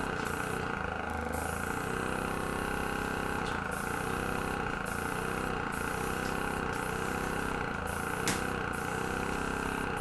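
Small airbrush compressor running steadily, with air hissing from the airbrush as it blows wet acrylic paint across a canvas; the airflow is too weak to push the paint far.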